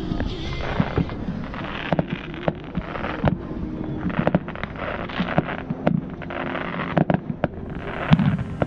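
Fireworks going off: irregular sharp bangs and crackling, several a second, with the loudest bang near the end.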